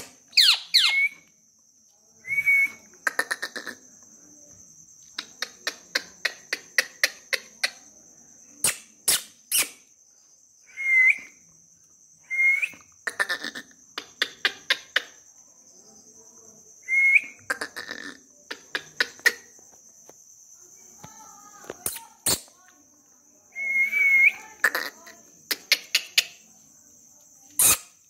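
Indian ringneck parakeet giving short whistled calls, each a quick rise and fall in pitch, several times with pauses between, a longer wavering one about 24 seconds in. Runs of sharp rapid clicks fall between the calls, over a faint steady high tone.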